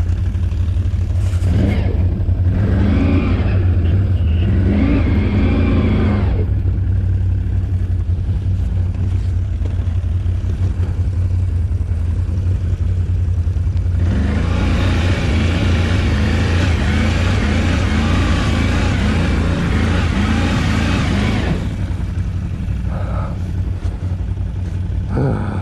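ATV engine running, revved hard twice for several seconds each time, from about two to six seconds in and again from about fourteen to twenty-one seconds in, as the rider tries to drive the stuck quad out of the mud.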